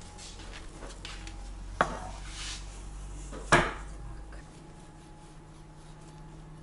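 Metal springform cake pan set down and knocked on a plastic cutting board: two sharp clattering knocks about a second and a half apart, the second louder, with light clinks of handling.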